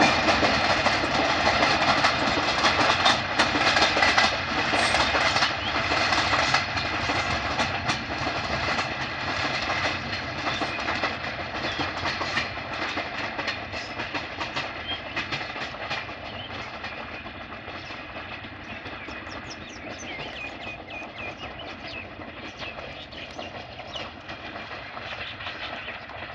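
Freight train of white tank wagons rolling away, its wheels clattering over the rail joints. The rumble and clatter fade steadily as the rear brake van recedes down the line.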